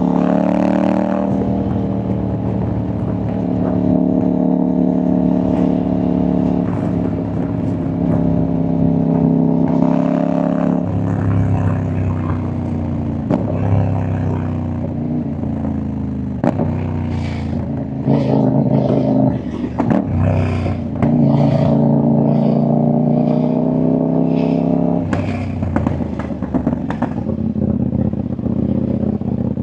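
CFMoto 800NK's parallel-twin engine and exhaust under way, its pitch rising and falling as the rider works the throttle and gears. From about the middle on, sharp exhaust pops and crackles break in again and again.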